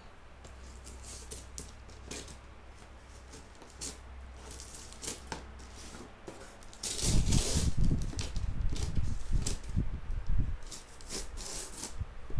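A drone's box and packaging being handled and opened: scattered taps and rustles over a low steady hum. About seven seconds in, the handling turns louder and busier, with rustling and bumps.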